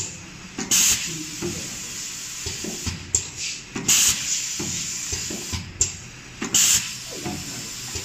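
Pneumatic cylinders of a semi-automatic flag-folding cable labeler cycling: three short, sharp bursts of compressed air hissing out, about every three seconds, over a steady background hiss.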